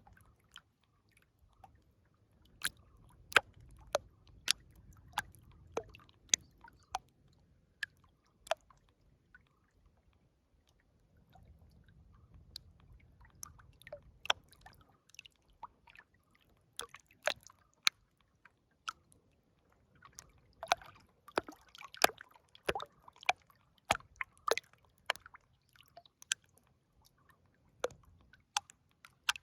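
River water gurgling and lapping at the edge, heard as an irregular run of sharp drips and plops that come thickest about two-thirds of the way in.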